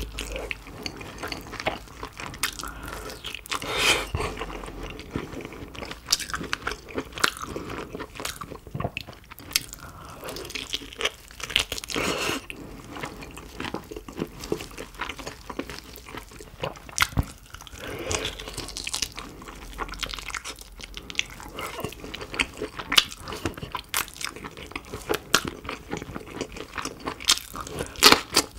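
Close-up eating sounds: biting into and chewing roast pork, with many irregular crunchy crackles and wet mouth sounds.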